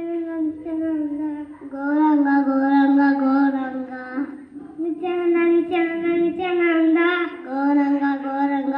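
A young child singing a melody into a microphone, in phrases of long held notes with short breaks between them.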